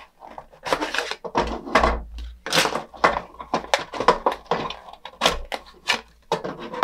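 Hard plastic toy kitchen parts being handled and pried apart: an irregular run of clacks, knocks and scrapes.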